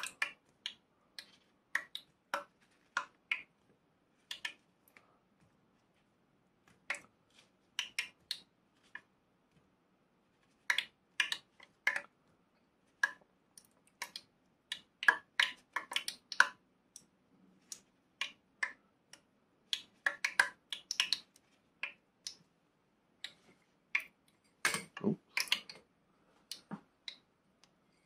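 Hot oil in a small electric deep fat fryer crackling with scattered sharp pops, irregular and sometimes in quick clusters, as it heats toward 190 °C for the second fry of chips.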